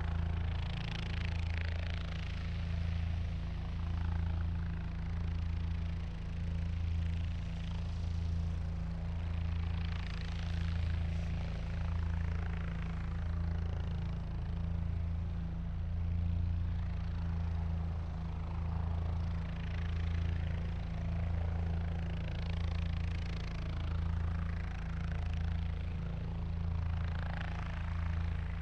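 Helicopter engine and rotor running steadily with a deep low hum, the sound swelling and fading gently every second or two.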